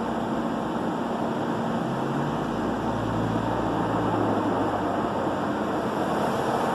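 Christ Genius rollover car wash running: spinning side brushes and water spray make a steady rushing wash, with a low motor hum joining in from about two seconds in until about five seconds in.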